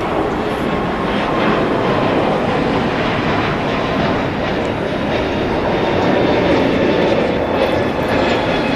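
Airbus A321neo's Pratt & Whitney PW1100G geared turbofan engines at takeoff thrust: a steady, loud jet roar with faint whining tones over it.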